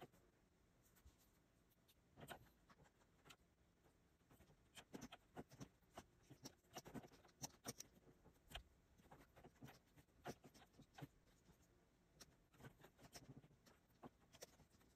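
Faint, irregular taps and strokes of a stylus drawing on a Wacom Cintiq pen display's screen, mixed with occasional keyboard key presses.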